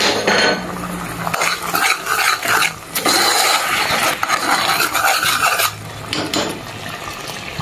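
Metal spoon stirring boiling coconut milk in an aluminium pot, scraping and clinking against the pan, with the bubbling of the boil underneath. It is quieter for the last two seconds or so.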